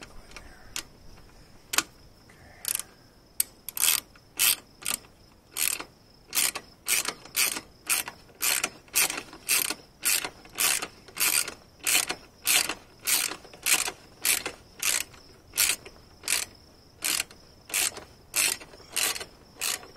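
Socket ratchet clicking as it is swung back and forth to drive a longer bolt into a motorcycle's passenger peg bracket. A few scattered clicks at first, then from about three and a half seconds in a steady rhythm of short rasping strokes, nearly two a second.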